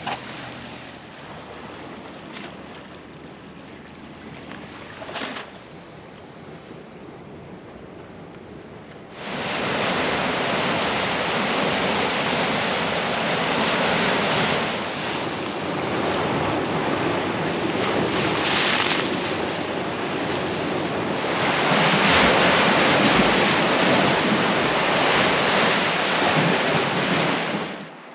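Sea surf breaking and washing over rocky shore ledges, with wind buffeting the microphone. The first nine seconds are quieter wind and water; then the surf comes in suddenly loud, swelling and ebbing, and cuts off just before the end.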